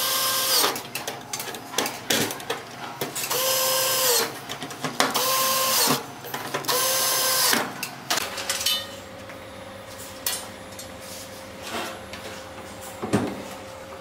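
Cordless drill-driver driving screws to fasten a lock control board into the cabinet, running in four short bursts over the first eight seconds, its motor pitch dropping as each run stops. Light clicks and knocks of parts being handled follow.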